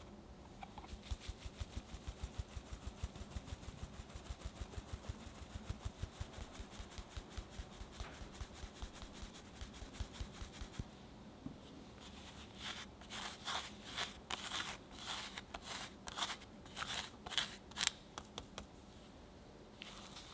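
A fine-mesh metal sieve being tapped to sift cake flour and almond powder into a glass bowl, with soft, even taps about four a second. From about twelve seconds in come irregular, sharper scratchy strokes of the sieve being worked.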